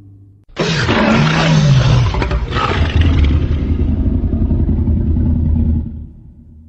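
A custom monster roar sound effect, mixed from dinosaur and animal roars. It starts suddenly about half a second in with a rough roar over a growl that falls in pitch, then settles into a long low rumble that fades out near the end.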